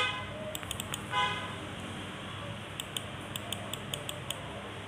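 A vehicle horn gives two short toots, the second about a second after the first. A quick run of light clicks follows about three seconds in.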